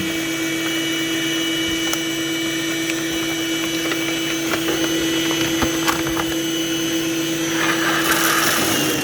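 Built-in grinder motor of a Gaggia bean-to-cup espresso machine running with an empty bean hopper, a steady motor whine. About eight seconds in the sound changes to a harsher, noisier whirr.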